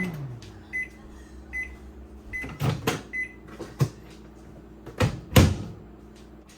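Microwave oven finishing its cycle: its running hum winds down, then it beeps five times, evenly spaced under a second apart, followed by several sharp clicks and knocks.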